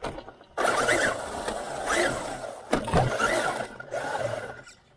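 Traxxas Unlimited Desert Racer RC truck's brushless electric motor, heard from a camera strapped to the truck, whining up and down several times with the throttle over a loud rush of tyre, grass and wind noise. There is a sharp knock a little before three seconds in, and the sound stops suddenly near the end.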